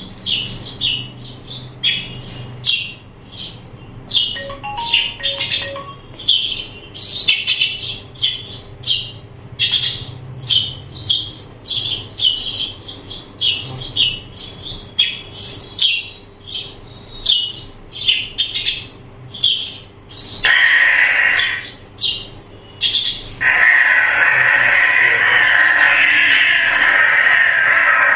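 A demo video's soundtrack playing through the Sony BRAVIA XR A80L OLED TV's Acoustic Surface Audio+ speakers, which sound from actuators behind the screen. Birds chirp quickly, several calls a second, for most of the time. Near the end, a loud steady rushing noise takes over.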